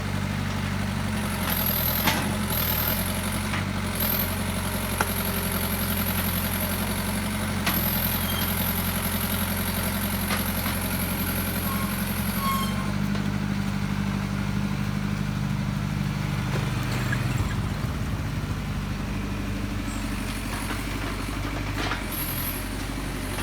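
Excavator engine running steadily while the machine digs, its note shifting a couple of times as the load changes, with a few sharp knocks.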